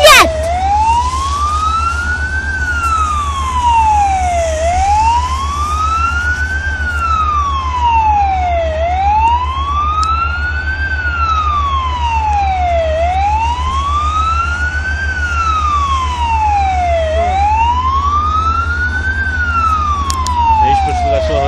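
Emergency-vehicle siren in a slow wail, rising and falling about every four seconds, five full cycles, over a steady low drone.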